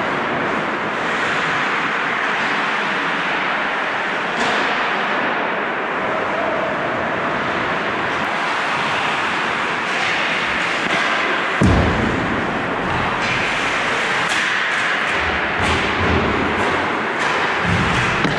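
Ice hockey play on an indoor rink: skate blades scraping the ice in a steady hiss, with scattered sharp clacks of sticks and puck. A heavier thump stands out about twelve seconds in.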